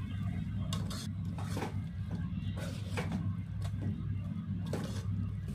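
Metal ladle stirring chicken pieces in masala in an aluminium pot, with scattered scrapes and light knocks against the pot's side, over a steady low hum.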